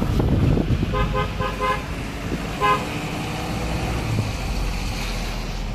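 A vehicle horn gives four quick short toots about a second in, then one more toot a second later, over the steady low rumble of a vehicle driving on a road.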